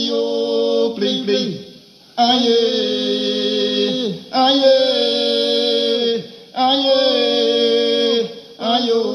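A man singing a chant-like line in long held notes of about two seconds each, every note ending with a falling slide in pitch, with short pauses between notes.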